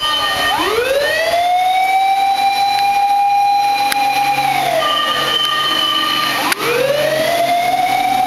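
Japanese fire truck's siren wailing: it rises for about a second and a half, holds one steady note for about three seconds, falls away, then rises again near the end.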